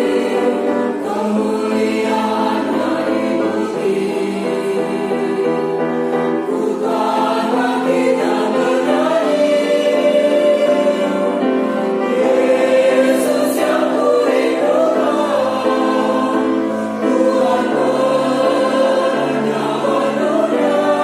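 A choir singing, holding long sustained chords in several voice parts.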